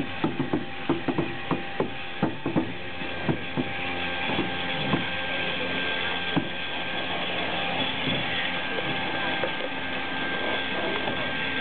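Bulleid light Pacific steam locomotive creeping slowly onto a turntable: a run of irregular metallic clanks and knocks as it rolls, coming quickly at first and thinning out after about four seconds, over a steady hiss.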